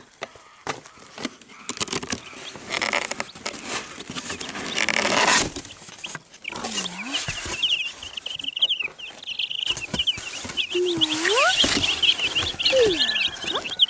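A cardboard box being handled and its flaps opened, rustling, then a boxful of Wyandotte bantam chicks peeping rapidly and continuously from about seven seconds in. A few lower sliding calls come over the peeping near the end.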